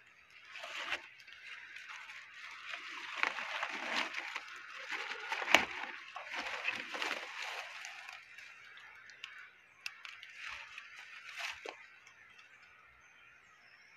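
Dry leaves and twigs rustling and crackling as hands work in leaf litter setting a stick-and-bamboo rat trap, with sharp snaps, the loudest about five and a half seconds in. A steady high hiss lies underneath throughout.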